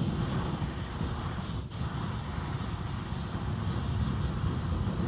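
Bonfire burning with a steady hissing rush over a low rumble, briefly cutting out about a second and a half in.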